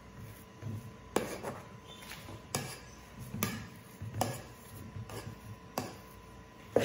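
A slotted metal spoon mashing boiled potatoes in a metal pot, clinking sharply against the pot about once a second.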